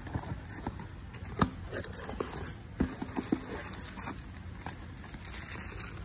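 Cardboard shipping box being handled, with scattered rustles and a few sharp taps and knocks, the loudest about a second and a half in and again near three seconds.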